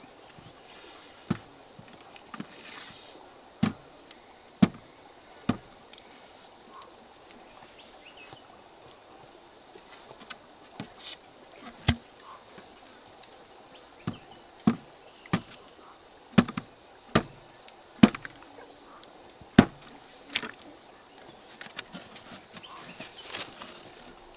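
A cooked bamboo tube being split and broken open: irregular sharp cracks and knocks of bamboo, more than a dozen, coming thicker in the second half.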